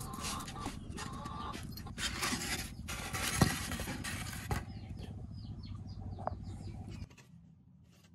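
Dry flakes poured from a plastic scoop, rustling and pattering onto dry leaf mulch in a pot, with one sharp knock about three and a half seconds in as a plastic tray is set down on the pot.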